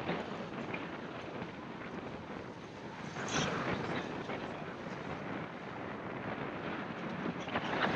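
Wind and rough sea rushing past a sailing boat under way, a steady hiss with a few faint ticks and a brief louder rush about three seconds in.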